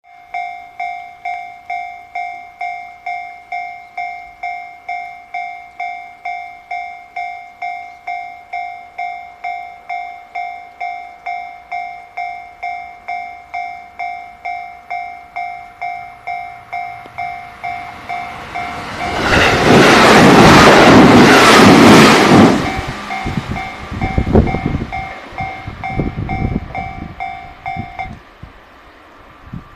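Japanese level-crossing warning bell ringing steadily at about two dings a second. A JR 213 series electric train of two two-car sets passes loudly about two-thirds of the way in, followed by its wheels clacking over the rail joints. The bell stops near the end.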